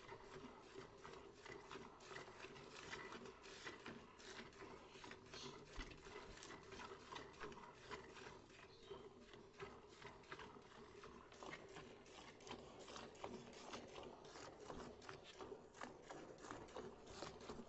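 Faint, quick patter of milk squirting from hand-milked teats into a steel pail, the spurts coming several a second and splashing into the frothy milk.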